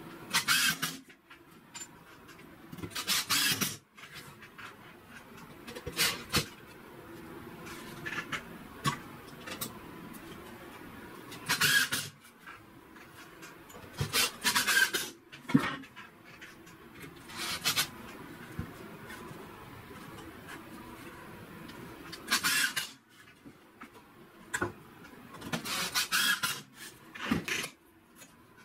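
Short rasping, creaking bursts every few seconds as a hand tool is twisted into the wooden boards of a step-stool frame, over a steady low room hum.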